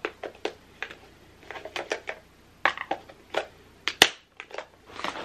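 Eyeglasses packaging being handled: a run of small irregular clicks and plastic crinkling, with one sharp, loud click about four seconds in.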